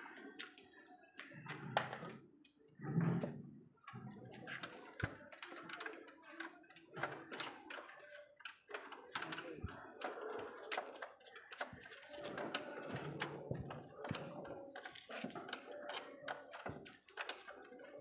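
Irregular light knocks and clicks, several a second, with a few heavier thuds in the first few seconds.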